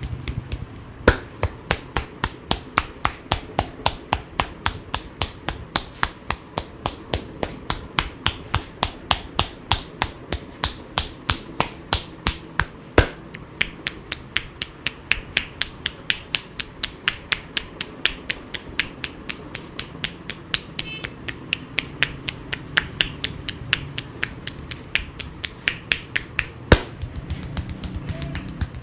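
Rhythmic percussive massage: the barber's hands striking the client in quick, even slaps or taps, about three a second, with a few sharper, louder strikes along the way.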